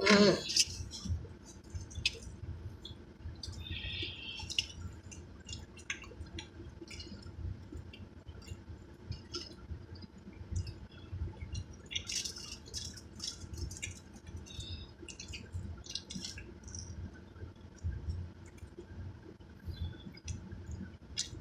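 Close-up eating sounds: chewing with scattered wet mouth clicks and smacks, as fried chicken wings are eaten. A brief hum-like voice sound comes right at the start, and a low wind rumble on the microphone runs underneath.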